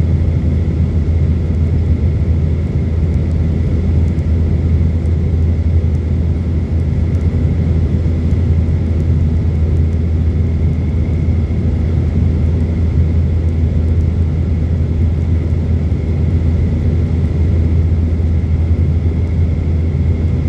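Boeing jet airliner in flight or on the ground, its engines and airflow heard as a steady low rumble with a faint steady high whine.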